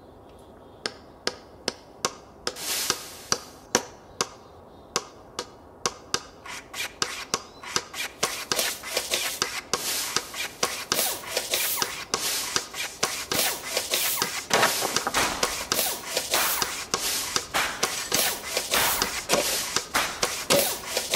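Hand-tool work sounds in quick succession: sharp single knocks and taps, a push broom sweeping concrete, and a shovel scraping into gravelly soil. It starts with isolated knocks about a second in and grows denser and louder from about six seconds on.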